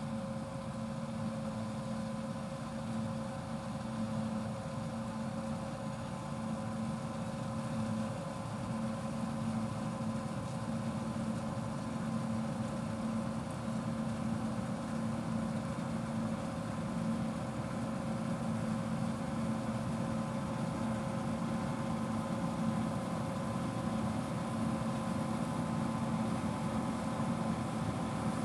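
John Deere 1470 combine harvester running while threshing wheat: a steady mechanical drone with a few held tones, growing slightly louder toward the end.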